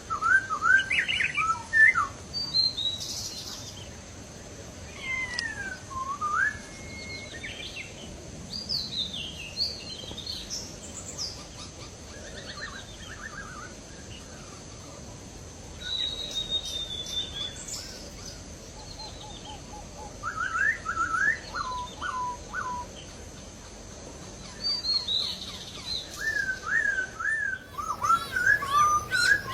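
A laughingthrush (poksay Hongkong) singing varied loud whistled phrases of rising and falling notes, in bursts with short pauses. A faint steady high-pitched tone runs underneath.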